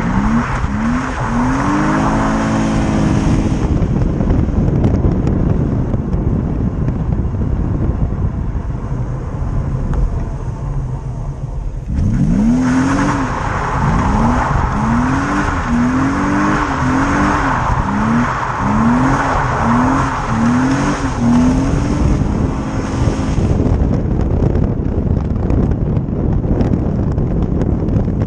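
BMW E36's M50B30 stroker straight-six being revved hard over and over, its pitch sweeping up and falling back about once or twice a second while the rear tyres squeal and spin on the tarmac. It does this for the first few seconds and again for about ten seconds in the middle, running more quietly in between and near the end.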